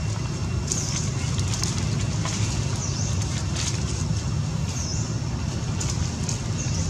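Steady low rumble of outdoor background noise, with faint high chirps recurring every second or two.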